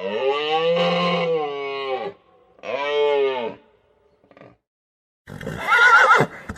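A horse neighing: a drawn-out call of about two seconds, a shorter call of about a second, and another call starting near the end.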